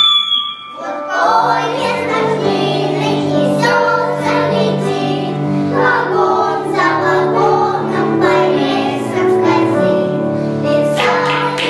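Children's choir singing together with piano accompaniment. A piano note is still ringing at the start, and the young voices come in about a second in and carry on steadily.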